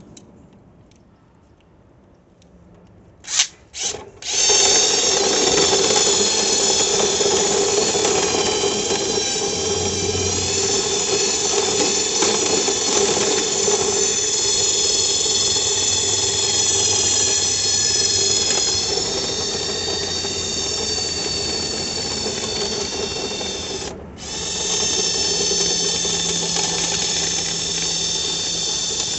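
Power drill running: two short trigger pulls, then a steady run. It stops for a moment about 24 seconds in and starts again.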